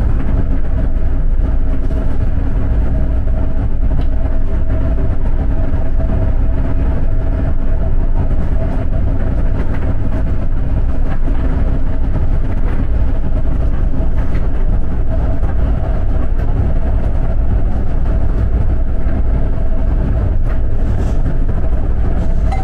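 Steady cabin noise inside a moving TransJakarta bus: a deep engine and road rumble with a faint steady hum running under it.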